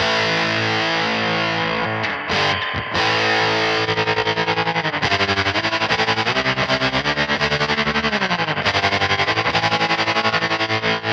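Distorted electric guitar (a Hallmark Swept Wing) playing sustained chords through the White Whale real spring reverb pedal, with fuzz on. About four seconds in, the pedal's tremolo chops the sound into fast, even pulses, and the pitch dips and comes back about eight seconds in.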